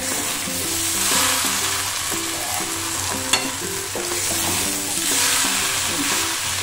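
Small tilapia with potato, aubergine and radish sizzling in a karai as a spatula stirs and turns them. The sizzle swells twice as the mix is turned, with a soft background tune underneath.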